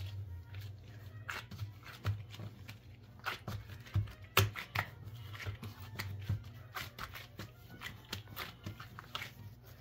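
Gloved hands kneading a ball of butter cookie dough on a countertop: irregular soft slaps and crackles of dough and disposable gloves, with one sharper slap about four and a half seconds in, over a low steady hum.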